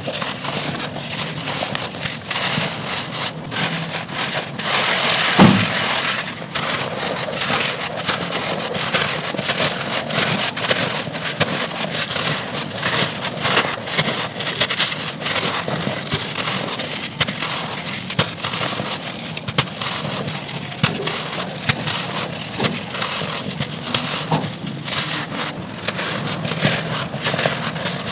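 Dry red dirt chunks being crushed and crumbling in a dense, steady run of crunches and crackles, with one heavier crunch about five seconds in.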